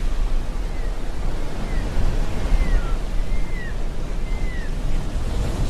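Steady wind and water noise with a heavy low rumble of wind on the microphone. Over it come about six faint, thin, high bird calls, each falling in pitch at its end.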